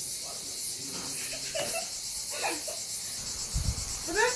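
A dense chorus of crickets chirping in a fast, unbroken pulse, loud enough to cover the voices nearby.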